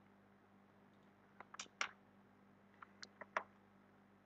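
A few faint computer keyboard and mouse clicks in two short clusters, about one and a half and three seconds in, over a faint steady hum.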